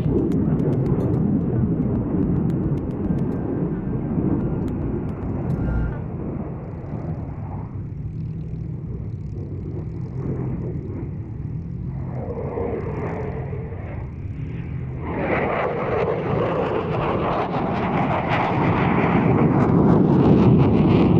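Eurofighter Typhoon's twin turbofan jet engines roaring through a display manoeuvre. The roar eases in the middle, then swells louder and harsher from about fifteen seconds in as the jet comes back round.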